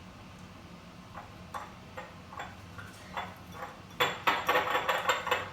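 Scattered light taps of a small plastic glitter container being handled, then about a second and a half of quick rattling clicks near the end as orange glitter is shaken out.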